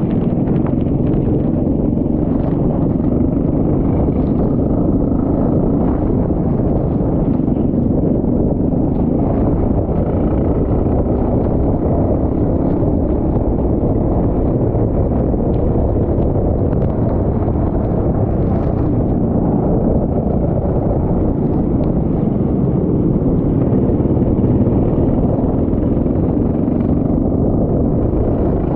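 Go-kart engine running under heavy wind rumble on the microphone, a loud, steady, unbroken drone.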